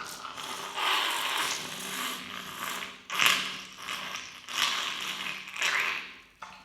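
A congested nose being blown hard several times in a row, a string of noisy blows with the longest lasting about two seconds from about a second in and the sharpest one about three seconds in.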